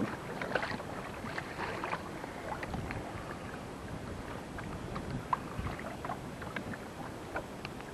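Wind and water noise around a small fishing boat on choppy water, with scattered faint clicks and taps.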